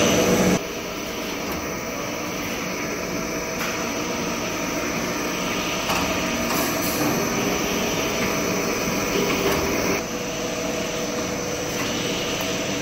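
Soda-cracker production line machinery running: dough-sheeting rollers and conveyors give a steady mechanical hum and whir, with a few faint clicks. The level drops about half a second in.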